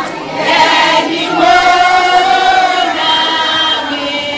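A large group of children singing together, holding long notes.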